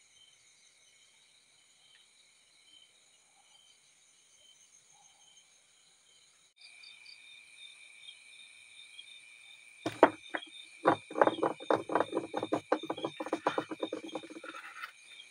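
Crickets chirping in steady, high, continuous trills, louder from about six and a half seconds in. In the last five seconds a rapid run of knocks and clatter, the loudest sound, plays over them.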